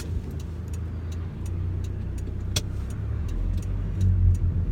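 Car engine and road rumble heard from inside the cabin, growing louder about three seconds in as the car pulls away. There is a single sharp click a little past halfway.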